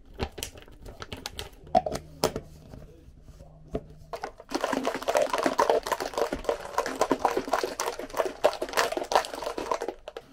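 A few light clicks and taps, then, about four and a half seconds in, a packet's wrapper crinkled and rustled in the hands for several seconds.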